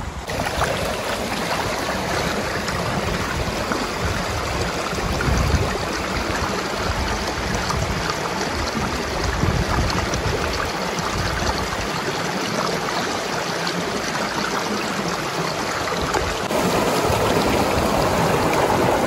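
River water flowing in a steady rush, a little louder for the last few seconds.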